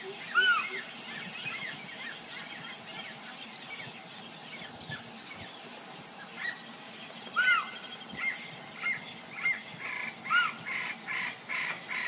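Hog deer calling: short, high-pitched, mewing calls that rise and fall, three louder ones spread across the stretch among fainter chirps, over a steady high-pitched drone.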